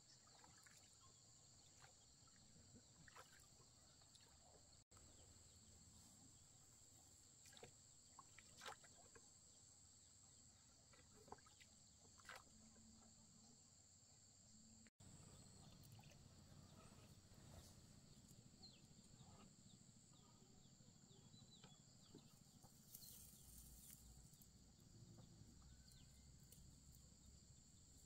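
Near silence: a faint, steady, high insect drone with scattered soft clicks. It cuts out for an instant twice.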